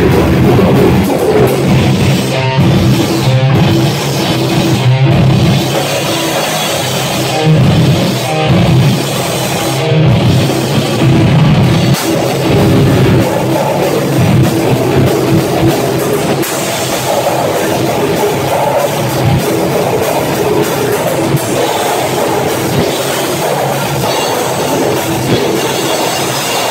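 Heavy metal band playing live: distorted electric guitars over a drum kit, loud and dense without a break.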